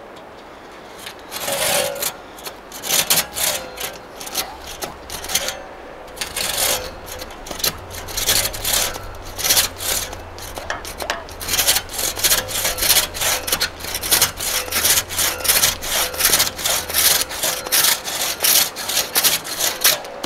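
Large-toothed straight handsaw cutting through a green log: a run of rasping saw strokes, uneven at first, then fast and regular at about two strokes a second from about halfway in. The big teeth and the flex in the blade make the cut a struggle, bending the blade on the outstroke, in the sawyer's view.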